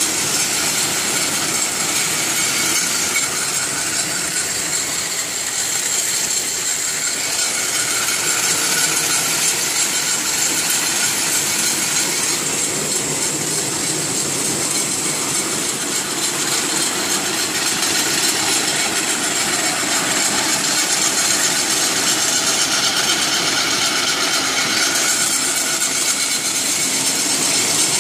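Kraft paper rewinder running at high speed: a steady, loud machine noise with a strong high hiss and a few faint steady whines.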